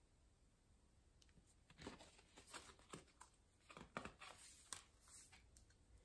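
Faint rustling and soft taps of a picture book's pages being handled and turned by hand, starting about two seconds in.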